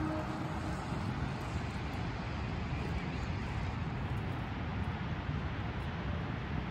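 Steady beach ambience: wind rumbling on the microphone over the even rush of ocean surf, with no voices or music.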